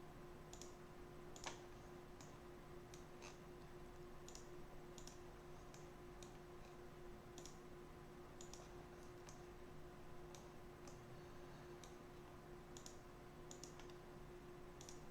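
Faint, irregular computer mouse clicks, about one a second, one stronger than the rest about a second and a half in, over a low steady electrical hum.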